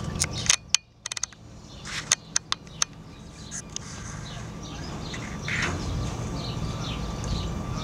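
Outdoor street ambience: small birds chirping repeatedly over a low steady rumble. A few sharp clicks come in the first couple of seconds.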